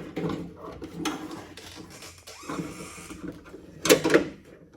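Door latch assembly and its metal and plastic parts clicking and rattling inside a car door shell as they are worked loose by hand. A brief scrape comes in the middle, and two sharp clacks come near the end.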